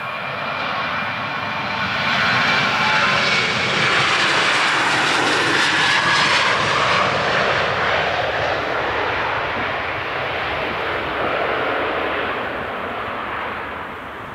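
Jet2 Boeing 737-800's CFM56-7B turbofans at take-off thrust as it rolls, rotates and climbs out close by. The noise builds over the first couple of seconds, is loudest in the middle with a high whine sliding down in pitch as it passes, then fades slowly as the jet climbs away.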